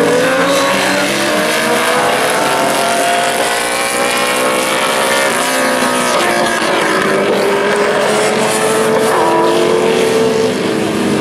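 Several classic superbike racing motorcycle engines revving hard as a pack races past, their overlapping pitches climbing under acceleration and dropping back as they shift and brake for the corners.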